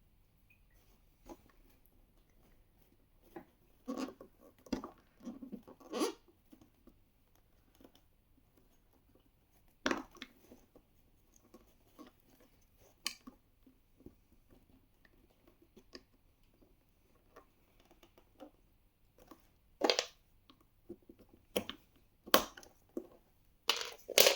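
A plastic prying tool working at a small plastic cap on a child car seat's plastic shell: scattered clicks, short scrapes and knocks of plastic on plastic, with quiet gaps between. Several sharper clicks come in the last few seconds.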